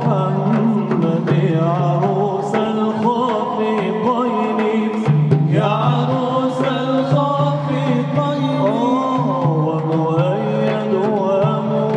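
Male Arabic inshad ensemble singing a devotional song in praise of the Prophet, with ornamented, melismatic vocal lines over a steady low drone. Frame drums with jingles keep a regular beat.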